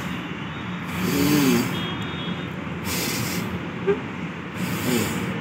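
Kapalbhati breathing: forceful exhalations of air through the nose, three short rushing puffs about two seconds apart. Steady city traffic runs underneath.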